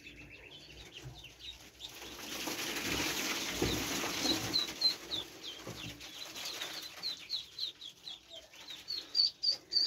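A brood of young chicks peeping: a run of short, high cheeps that becomes busier and more regular toward the end, with a soft rustling noise in the first few seconds.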